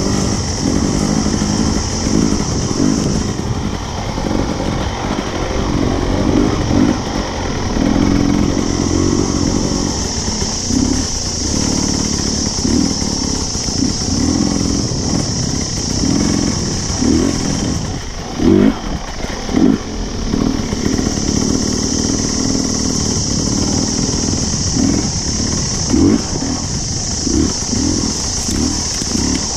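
Dirt bike engine revving up and down while riding slowly over a bush trail, the throttle opened and closed every second or so, with a few sharp blips about two-thirds of the way through.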